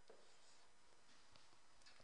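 Near silence: faint room tone with a couple of soft ticks.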